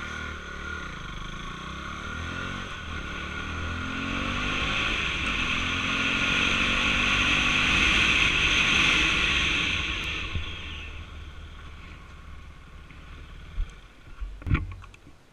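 KTM Duke 390's single-cylinder engine running as the motorcycle rides along, building louder toward the middle, then easing off and quietening about ten seconds in. Two sharp knocks come near the end.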